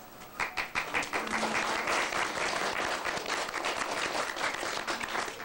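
Audience applauding, many hands clapping, starting about half a second in and dying down near the end.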